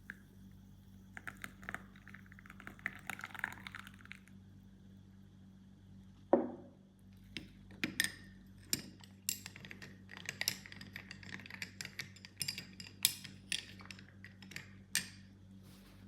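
Dishes, glassware and cutlery clinking and knocking during kitchen work, in scattered quick clicks, with a short falling-pitch scrape about six seconds in as the loudest moment. A steady low hum runs underneath.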